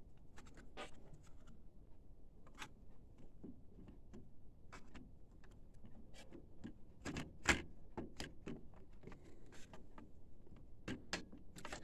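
Irregular small clicks and knocks of metal and plastic parts as a paper-roll unit is worked into an Epson 1500W printer's sheet-metal chassis, catching on a bent piece of metal that blocks it. A louder knock comes a little past halfway.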